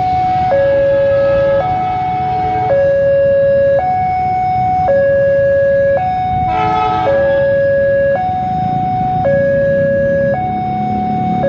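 Level-crossing warning alarm sounding a steady two-tone hi-lo pattern, each tone about a second long. Underneath, the low rumble of an approaching KAI diesel locomotive grows louder near the end.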